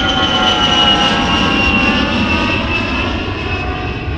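Aircraft engine running: a steady rumble under a high whine that slowly falls in pitch, as of a plane flying off.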